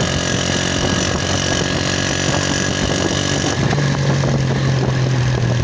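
Motorcycle engine running while the bike is ridden over a rough dirt track, heard from the rider's seat. About three and a half seconds in, the engine note steadies and gets louder.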